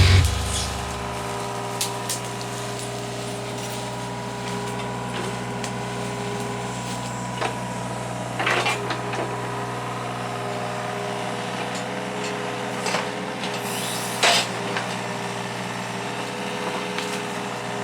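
Hitachi 35 mini excavator's diesel engine running steadily, with a few short cracks and scrapes over it, the loudest about 14 seconds in.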